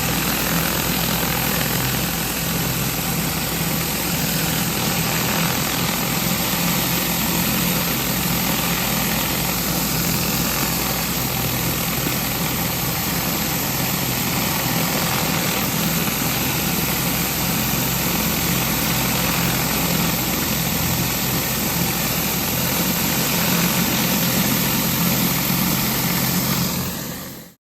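Pressure-washing rig running steadily under load: the engine and pump drone with a low hum under a dense hiss of high-pressure water spraying. It cuts off suddenly near the end.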